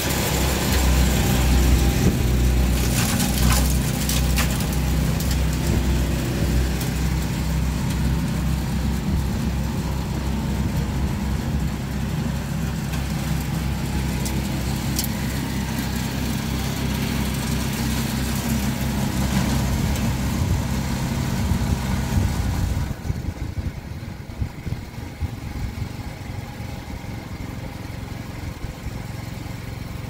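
Snow blower engine running steadily, then cutting out abruptly about three-quarters of the way through, leaving only a quieter hiss.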